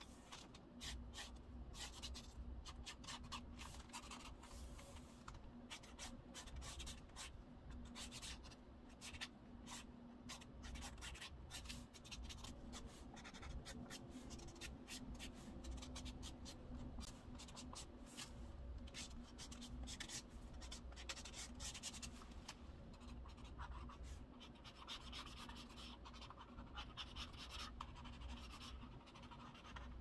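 Felt-tip pen strokes scratching on journal paper: quick, irregular strokes, close together, over a steady low hum.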